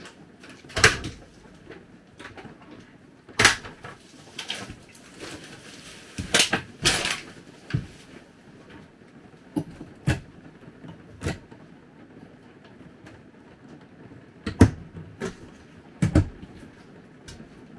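Scattered knocks, thuds and clatters of cupboard and refrigerator doors and household items being handled in a small room, with a brief rustle around six to seven seconds.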